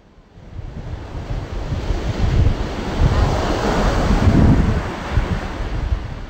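Ocean surf breaking on a sandy beach: the wash builds from the start, peaks as a wave breaks close in about four seconds in, then eases, with wind buffeting the microphone.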